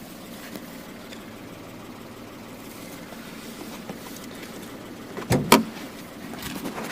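Citroën C3 III's 1.2 PureTech three-cylinder engine idling steadily, with two loud sharp knocks in quick succession about five seconds in.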